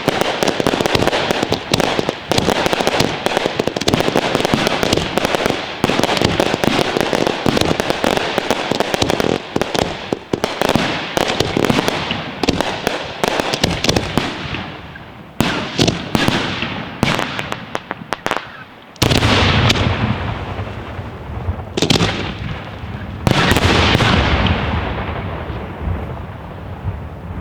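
Aerial fireworks finale: a dense, rapid barrage of bangs and crackling for about the first fourteen seconds. It then thins to a few single heavy bangs, each followed by a rumbling echo.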